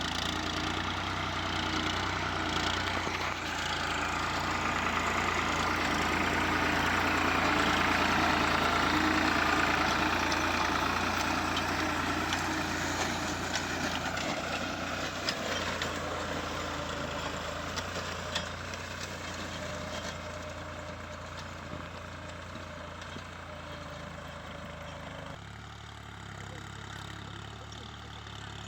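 Farm tractor's engine running steadily while it pulls a plough, growing louder to its nearest point about eight seconds in and then slowly fading as the tractor moves away.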